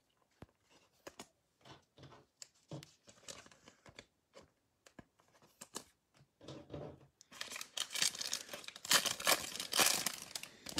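Black foil trading-card pack wrapper being torn open and crinkled, dense and loud for about three seconds near the end. Before it, a scattering of light clicks and taps from the cards being handled.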